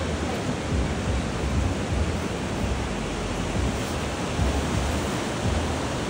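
Ocean surf breaking and washing up a sandy beach: a steady rushing noise with a low rumble that swells and eases.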